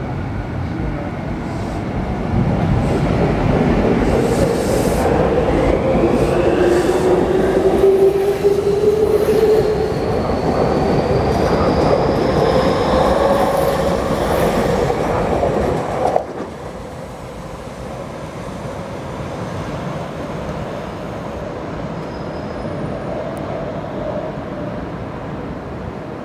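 Electric commuter train accelerating past, the whine of its VVVF inverter motors rising slowly in pitch over the running noise of wheels on rail. The noise drops off suddenly about two-thirds of the way through as the train clears, leaving a lower rumble.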